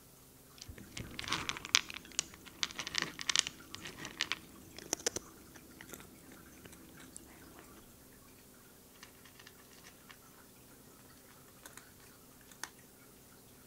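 Abyssinian cat crunching dry kibble from a plate. A dense run of sharp crunches starts about a second in and lasts about five seconds, followed by a few scattered crunches later on.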